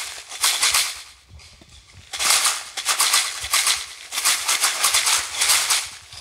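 Dense, hissing rattle like a shaker, in uneven swells. It fades out about a second in and comes back just after two seconds, pulsing about twice a second.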